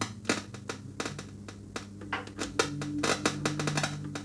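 Epiphone Valve Special tube guitar amp crackling and popping in irregular clicks over a steady hum as its reverb level pot is worked. This is the amp's fizz-and-crackle fault, which the repairer says could be a damaged pot or poor solder connections on it.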